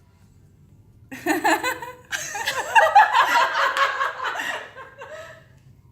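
People laughing and chuckling together, starting about a second in and fading out near the end.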